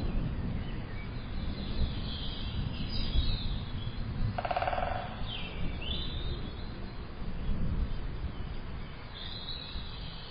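A low, continuous rumble with bird chirps at intervals, and a short buzz about four and a half seconds in.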